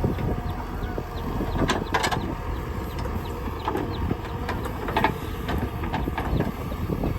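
JCB 3DX backhoe loader's diesel engine running steadily, with a few sharp knocks from the bucket working among stones, a pair about two seconds in and another about five seconds in.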